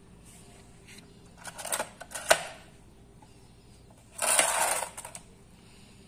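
A few small knocks and rattles with one sharp click about two seconds in, then a clattering, scraping rustle lasting about a second, like small metal parts being handled.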